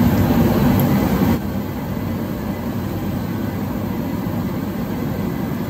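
Steady mechanical rumble and hiss with no clear pitch, which drops suddenly to a lower steady level about a second and a half in.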